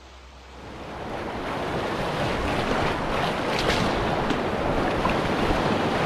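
Fast river rapids rushing and splashing around a canoe, with wind buffeting the microphone. It swells in from a low hush about a second in and then stays loud and steady.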